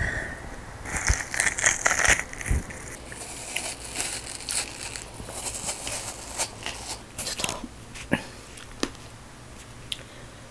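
A spoon digging into a wedge of watermelon, crunching and crackling through the wet flesh, with scratchy rustling and a few sharp clicks.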